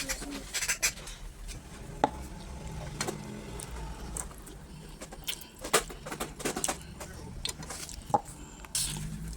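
Cutlery clinking and scraping against a plate while a meal of rice and stew is eaten, in scattered sharp clicks.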